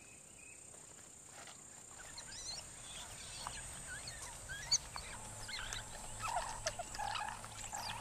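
Banded mongooses giving short, high chittering squeaks that grow busier from about two seconds in, over a steady high insect whine.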